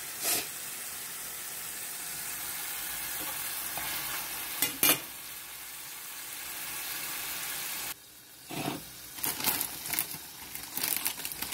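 Seasoned chicken strips sizzling steadily as they fry in olive oil and butter in a stainless steel skillet, with a few sharp knocks of a metal spoon against the pan. About eight seconds in, the steady sizzle cuts off and gives way to irregular clicks and crackles as onion pieces are moved in the oily pan.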